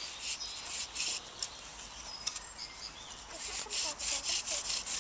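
Bow drill worked for a friction fire: the wooden spindle rubs back and forth in the notched fireboard with each stroke of the bow, an even run of scraping strokes that grows faster and louder about three seconds in.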